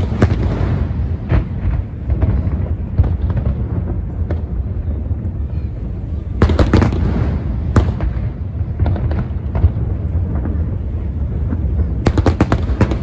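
Aerial firework shells bursting over a constant low rumble of explosions. There is a loud bang at the start, a cluster of sharp cracks about six and a half seconds in, and a rapid run of bangs near the end.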